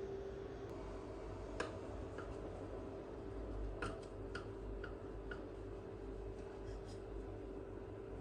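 A handful of light, irregular clicks and taps, like small objects being handled, over a steady low hum and a faint steady tone.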